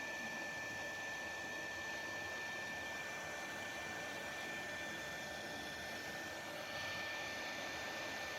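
Hot-air gun of a soldering station blowing steadily: an even rush of air with a thin, constant high whine. It is heating a stuck plastic fan impeller to loosen it from the motor shaft.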